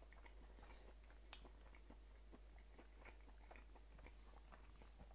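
Faint chewing of a bite of sous-vide picanha steak: soft, irregular clicks and smacks of mouth and teeth working the meat.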